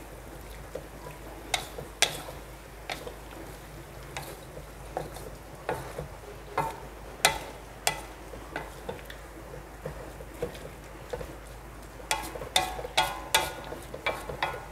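A metal spatula stirring food in a pan on the stove, knocking and scraping against the pan in scattered clicks over a faint steady hiss of cooking. Near the end comes a quick run of ringing metal clinks.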